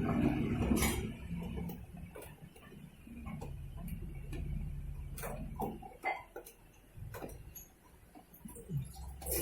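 LG Fuzzy Logic 6.5 kg top-load washing machine running in its wash cycle: a low motor hum with irregular clicking knocks, the 'khad khad' rattle of a faulty gearbox. The hum stops about six seconds in, leaving scattered clicks.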